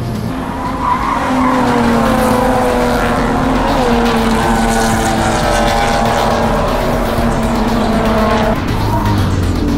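A pack of BMW E30 race cars driven hard through a corner, several engines at high revs overlapping, their notes sliding up and down as the cars go by, with tire squeal.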